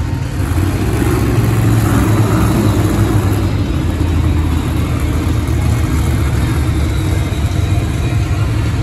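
Monster truck engines idling with a deep, steady rumble, getting louder about half a second in.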